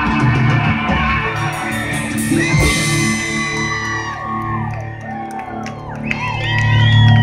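Live rock band playing with electric and acoustic guitars, bass and drums: cymbals crash about a second and a half in and chords ring out. Whoops rise over the music near the end.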